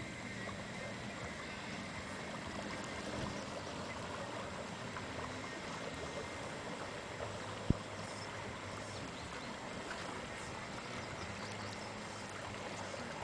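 Lake water lapping, a steady watery wash, with one sharp click a little over halfway through.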